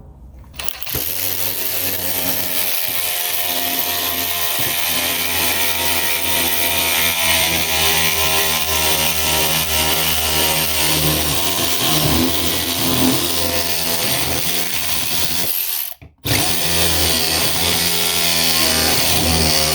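Cordless electric ratchet's motor running under load as it drives a large lag screw into wood, with a brief stop about three-quarters of the way through before it starts again.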